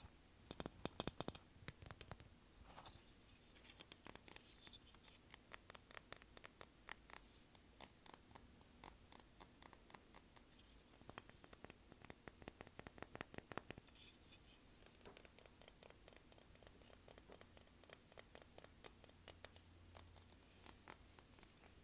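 Fingernails tapping and scratching on a small beach-souvenir figurine: faint, quick runs of light clicks, loudest about a second in and again from about 11 to 14 seconds.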